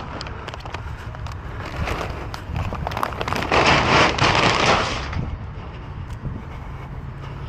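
Crackling and rustling of bags and trash being handled and shifted in a dumpster, with scattered light knocks, loudest about three and a half to five seconds in.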